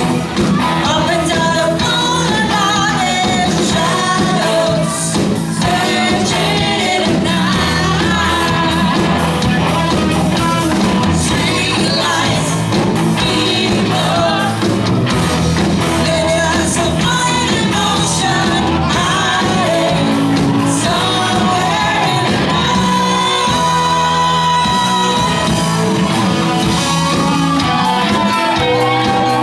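Live band playing a pop-rock cover: a singer over electric guitar, keyboard and drums, loud and steady.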